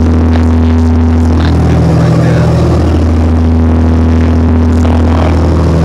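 Fishing boat's engine running steadily underway: a loud, even, low drone.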